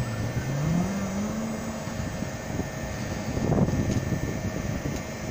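Haier AV14IMSEVA MRV outdoor unit running, its inverter compressor turning at full speed: a steady mechanical hum and rush, with one tone rising in pitch about a second in.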